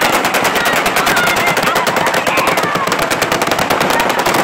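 Automatic gunfire: long unbroken bursts of rapid, evenly spaced shots, with voices crying out beneath them.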